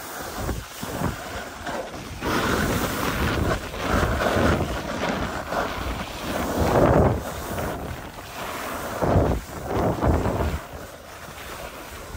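Wind buffeting the microphone of a skier going downhill, with skis hissing and scraping over packed snow in repeated surges.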